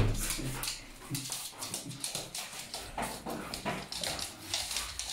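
Excited dogs moving about on a laminate floor: many short claw clicks and scrabbling footsteps, with a sharp knock right at the start and a few brief low whines.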